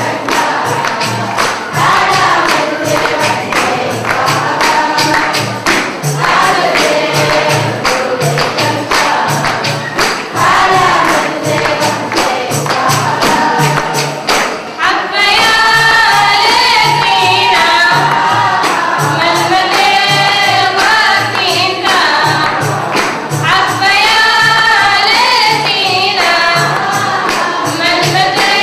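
Group of girls singing a Harari zikri devotional song together over a steady, evenly repeating percussion beat. About halfway through the singing becomes louder and fuller.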